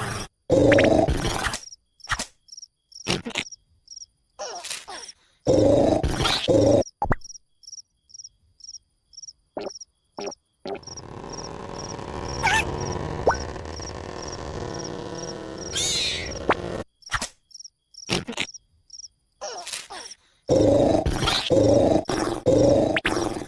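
Cartoon sound effects: a cricket chirping in a steady run of short high chirps, broken by loud bursts of cartoon snoring and grunting that stop and start again. About halfway through there is a quieter stretch of steady hiss with a couple of brief whistle-like glides.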